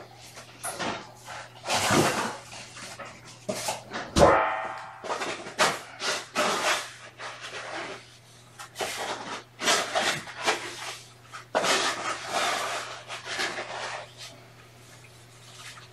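Irregular scratchy rustling and scraping in short bursts, with one sharp knock about four seconds in.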